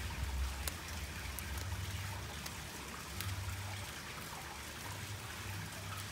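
Steady trickle of running water into a garden fish pond, with a few faint sharp snips of scissors cutting plastic wrapping.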